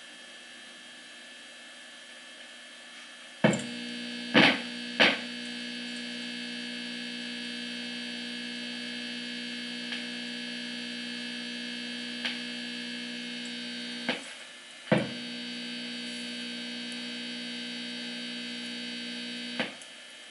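A Univox U-1226 tube guitar amp hums loudly through its speaker, a steady buzzing hum made of many tones. It switches on with a pop about three and a half seconds in, followed by two more pops. The hum cuts out with a pop around fourteen seconds, returns with another a second later, and stops with a pop near the end. It goes with the amp's intermittent fault, in which one 5881 power tube glows red.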